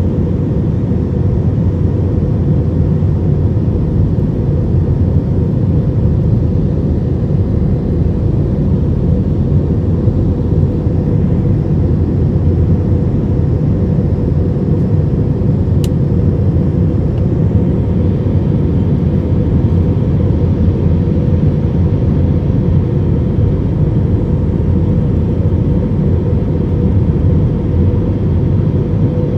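Jet airliner cabin noise in flight, heard from a window seat over the wing: a steady, even rumble of engine and airflow with a faint steady hum over it.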